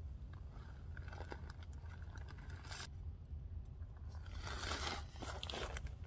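Bird seed being poured from a plastic bag into a wooden hopper feeder: the bag rustles and the seed scrapes. It comes in two stretches, the second louder, near the end, over a steady low rumble.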